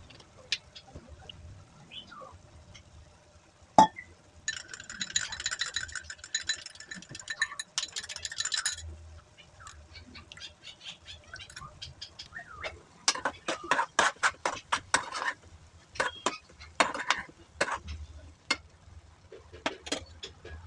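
Kitchen utensils clinking and scraping against cookware: a sharp knock, then several seconds of steady scraping with a metallic ring, and later quick runs of clinks and taps.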